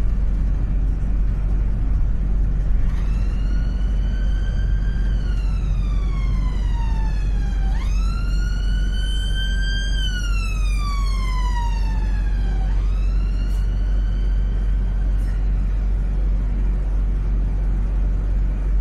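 An emergency vehicle's siren wailing in slow rising and falling sweeps. It comes in about three seconds in, snaps back up twice and fades out around fifteen seconds in, over the steady low rumble of the double-decker bus's engine and road noise.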